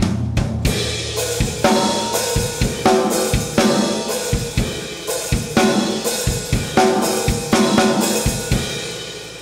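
Drum kit playing a halftime groove: crash cymbal struck together with the snare on the offbeats, hi-hat on the downbeats, with snare pickups in between. The playing stops near the end and the cymbals ring out and fade.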